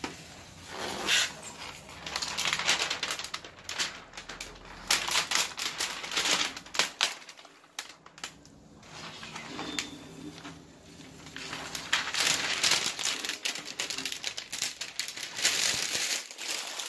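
Thin protective plastic film crinkling and rustling in irregular spells as hands peel it off and handle it on the face of an LCD TV panel, with a quieter pause partway through.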